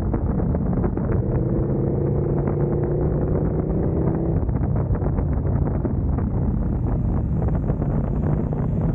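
KTM motorcycle engine running at road speed through a series of bends, with wind rushing over the microphone. A faint steady hum rides over it for a few seconds about a second in.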